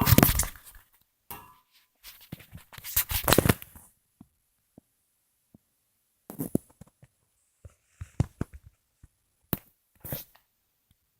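Handling noise from a large LEGO toy rifle being moved and turned: bursts of plastic scraping and rustling, loudest about two to four seconds in, with a few short clicks and scrapes later.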